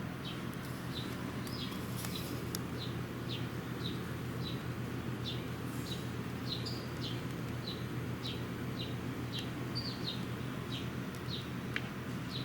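A bird calling over and over: short, high chirps that slide downward, just under two a second, over a steady low hum.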